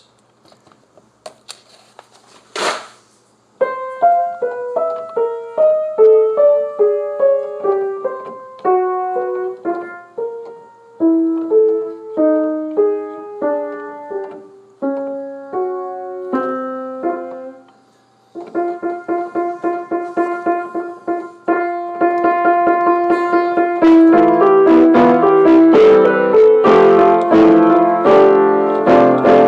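Piano played by hand. After a few quiet seconds and a single knock, a melody is picked out a note at a time, then comes a run of repeated chords, and the playing grows fuller and louder over the last few seconds.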